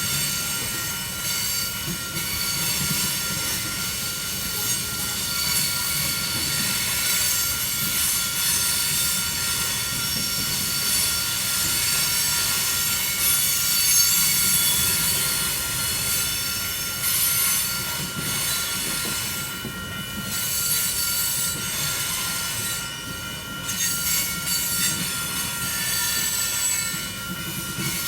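Union Pacific coal train's freight cars rolling past, their steel wheels squealing on the rails in several steady high-pitched tones over a continuous low rumble.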